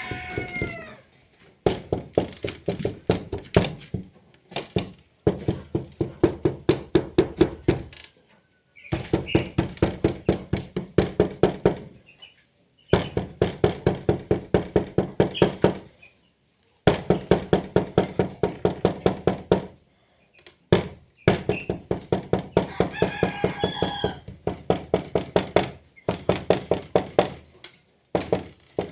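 Knuckles rapping on a door in fast runs of knocks, about five a second, each run lasting two to four seconds with short pauses between, repeated about eight times. A few high wavering calls sound over the knocking now and then.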